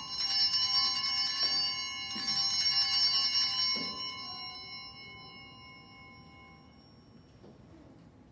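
Altar bells (sanctus bells) shaken at the elevation of the consecrated host, a cluster of bright chiming tones. They are struck at the start and again about two seconds in, then the ringing dies away over the next few seconds.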